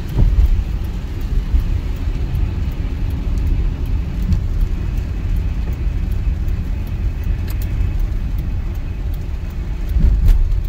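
Car cabin noise while driving on a wet road in rain: a steady low rumble of engine and tyres, with light scattered ticks of raindrops on the glass. The rumble swells briefly near the end.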